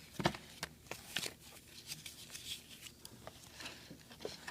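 A folded paper checklist being handled: paper rustling with a few sharp clicks and taps, the loudest just after the start and a cluster within the first second and a half.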